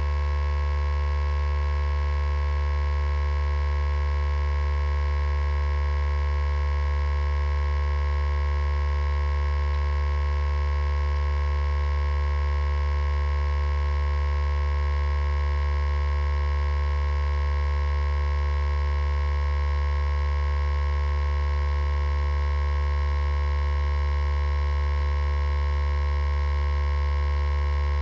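Steady electrical hum: a deep drone with several fixed, higher whining tones above it, holding perfectly level and unchanging throughout.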